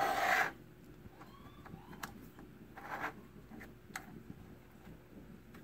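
Stop block sliding along the fence of a drill press table, a short scraping rub that stops about half a second in, followed by a few faint light taps.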